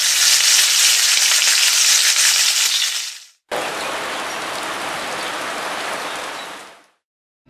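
A loud, high sizzling hiss of food on a hot grill for about three seconds, cutting off suddenly. After a brief gap, heavy rain falling steadily, quieter than the sizzle, fading out near the end.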